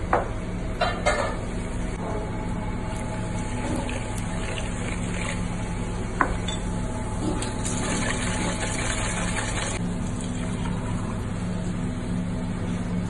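Salt being stirred into water in a stainless steel bowl, with sharp metal clinks near the start and about six seconds in and a stretch of busier scraping and sloshing later on. A steady low hum runs underneath.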